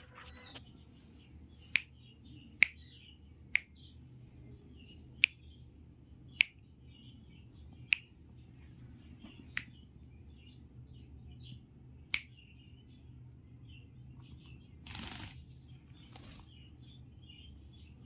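Eight sharp clicks, one to two and a half seconds apart, over soft, faint chirping from a rose-ringed parakeet. A short rush of noise comes about three seconds before the end.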